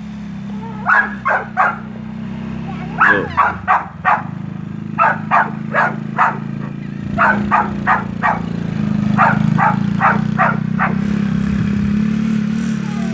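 A dog barking repeatedly at a Coolster 110 kids' ATV, in quick bursts of two to five barks. Under the barking, the ATV's small 110cc four-stroke engine runs steadily as it rides around the yard.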